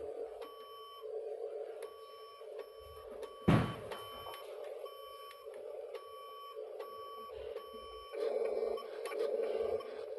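Dump truck's reverse-warning beeper sounding in a steady, regular series of beeps, a little more than one a second, over a steady motor hum. There is one sharp knock about three and a half seconds in.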